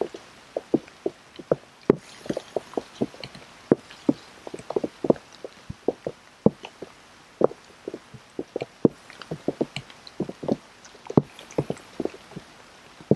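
Rain drips landing close to the microphone: short, irregular plinks and knocks, several a second, with no engine or train sound.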